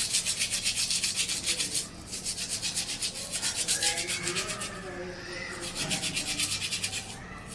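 Toothbrush scrubbing an oily bicycle disc brake pad with soap, in quick back-and-forth strokes about five a second, pausing briefly twice.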